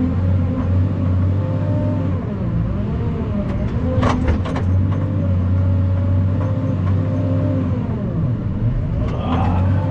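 Heavy truck's engine running while driving, a steady low hum whose pitch dips and recovers twice. A couple of sharp clicks come about four seconds in.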